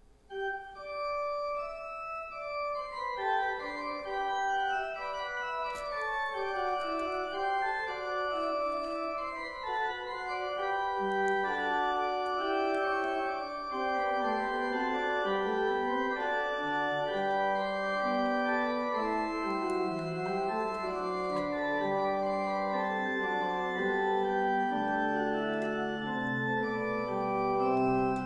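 Organ playing slow, sustained chords, the notes held without decay; lower bass notes join about eleven seconds in.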